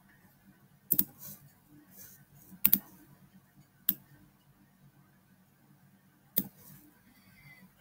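Computer mouse clicking: a double click about a second in, another near 3 s, then single clicks near 4 s and 6.5 s, over a faint low hum.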